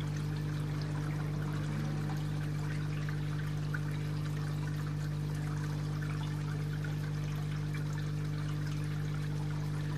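Garden pond water trickling and splashing steadily into the pond, over a steady low electrical hum.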